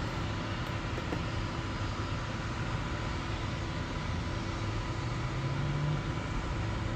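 Steady low rumble and hiss of crane machinery running during a slew. A low hum rises slightly in pitch about five seconds in.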